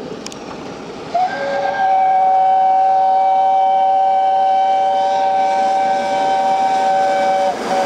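Steam locomotive 60163 Tornado's chime whistle sounding a long chord of several notes at once, starting about a second in. It breaks off briefly near the end and sounds again over the steady noise of the approaching train.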